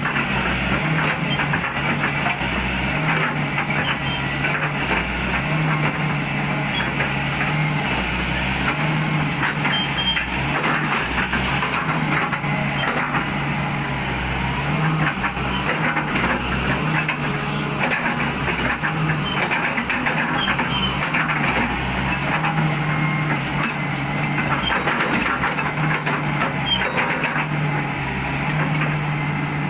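Volvo EW145B excavator's six-cylinder diesel engine idling steadily while warming up, running again after six new injectors were fitted and the stop-engine fault cleared.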